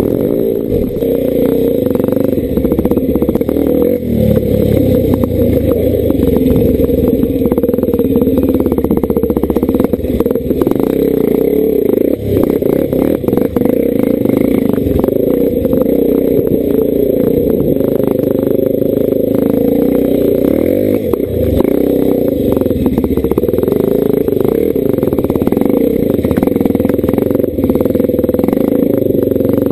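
Enduro dirt bike's engine running under load, its revs rising and falling with the throttle, with clatter from the bike jolting over rocks and ruts.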